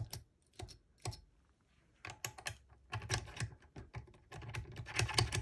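Irregular clusters of small metallic clicks and taps from a tool working against a drilled Ultion 3-star euro cylinder as a loose pin is worked out of it, with a pause of about a second near the start.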